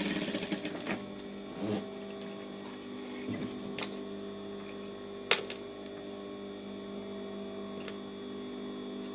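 Industrial sewing machine stitching briefly, then stopping right at the start. A steady electric hum follows, broken by a few sharp clicks, the loudest about five seconds in, as the satin fabric and thread are handled at the machine.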